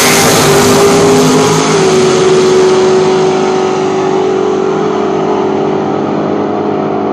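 Two drag-racing cars launching off the starting line and accelerating away down the strip. Their loud engine noise grows quieter and duller as they pull away, with a steady engine note running underneath.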